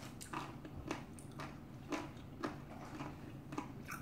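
Faint, irregular clicks and light crinkles, about two a second, from a thin clear plastic bag being handled.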